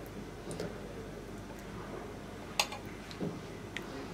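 Metal spoon stirring thick soup in a ceramic bowl, with a few light clinks of the spoon against the bowl, the clearest about two and a half seconds in.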